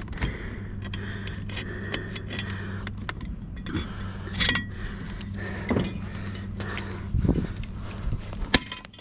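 Small pieces of scrap metal clinking and knocking as a fitting is handled and broken open to check whether it is brass. Sharp knocks come irregularly, the loudest about seven and eight and a half seconds in, over a steady low hum.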